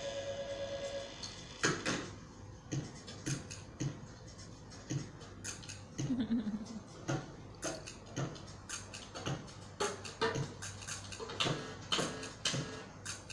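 Soundtrack of a cat video playing from a television's speakers: a steady electronic tone for about the first second, then a run of irregular clicks and taps over faint music, with a short tone that falls in pitch about six seconds in.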